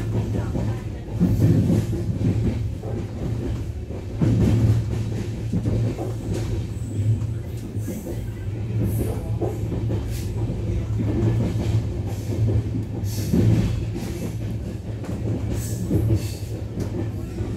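Malwa Express passenger train rolling, heard from inside a coach: a steady low rumble with irregular knocks and clatter from the wheels on the track.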